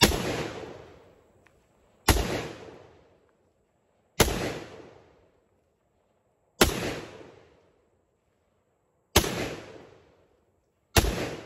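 Six single gunshots from an AR pistol, fired at a slow, steady pace about two seconds apart. Each crack is followed by a tail that dies away within about a second.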